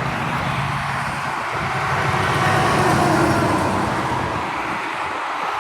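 Road traffic noise: a steady wash of passing vehicles that swells a little about halfway through and eases near the end.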